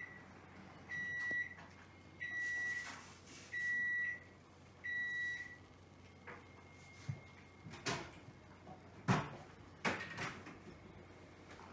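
Electronic appliance beeper sounding four evenly spaced short beeps a little over a second apart, then one fainter, longer beep. A few light knocks follow near the end.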